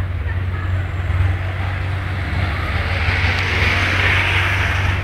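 A small hatchback car driving past close by, its tyre and engine noise swelling about three seconds in, over a steady low rumble.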